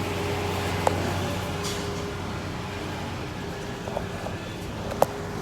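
Truck engine running steadily at low speed, heard from inside the cab. Two sharp clicks, about a second in and near the end.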